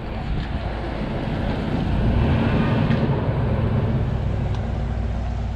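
A truck engine running, its low, steady note growing louder about two seconds in and then easing off again.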